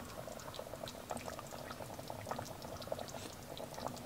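Celery and chicken stew (khoresht karafs) simmering in a stainless steel pot, its bubbles popping in small, irregular pops over a soft hiss.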